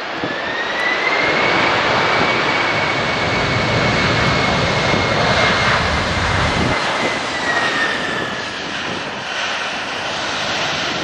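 Boeing 767-300F's General Electric CF6 turbofans in reverse thrust on the landing rollout. The engines spool up with a rising whine, hold a loud steady roar, then wind down about two-thirds of the way in as the jet slows.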